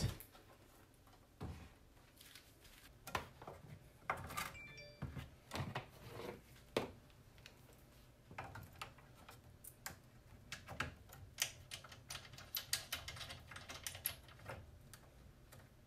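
Cables being plugged into the back of a disk drive by hand: scattered faint clicks, taps and rustles of connectors and cords, coming in irregular clusters.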